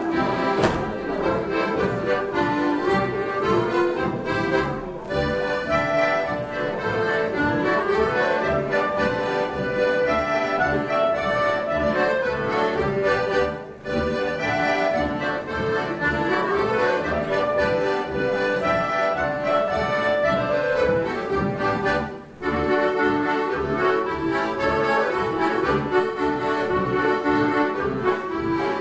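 Accordion-led folk band playing a lively dance tune with a steady beat. The music breaks off very briefly twice, about halfway and about three-quarters of the way through.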